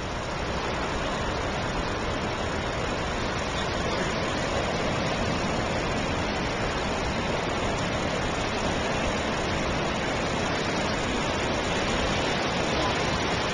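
Ocean surf breaking on a sandy beach, a steady rushing noise.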